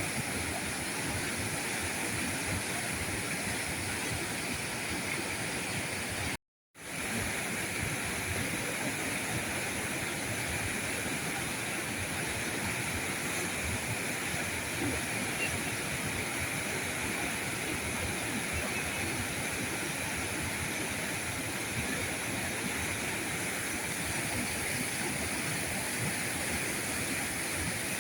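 River current rushing steadily over rocks, a continuous even wash of water. It cuts out completely for a fraction of a second about six and a half seconds in.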